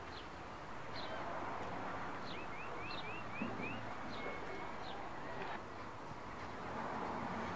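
Birds chirping over steady outdoor background noise, with a quick run of about five short rising chirps a little over two seconds in and a few scattered single chirps.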